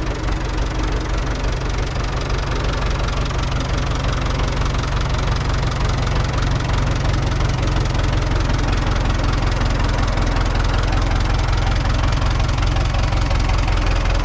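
Farm tractor's diesel engine running steadily, with a fast, even low pulse.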